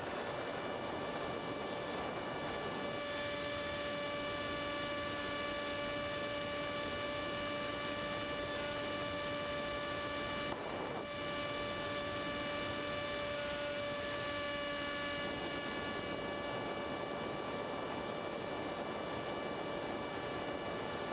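Multiplex EZ Star model plane's electric motor and propeller running steadily in flight, a droning whine over wind noise, heard from a camera on the plane. The whine firms up about three seconds in, and its lower part drops away about fifteen seconds in.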